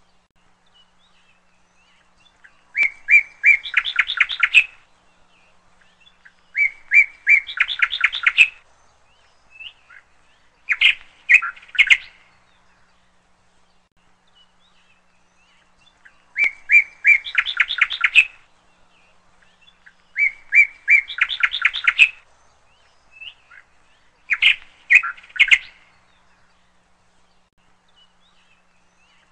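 A songbird singing six short, repeated phrases, each a few clear notes followed by a fast trill that climbs in pitch, with pauses of a few seconds between phrases.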